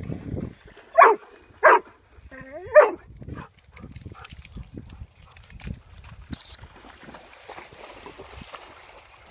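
A dog barking, three sharp barks in the first three seconds, the last one sliding up in pitch. About six seconds in comes a loud, short, high-pitched double tone, then faint splashing as the dogs wade in shallow muddy water.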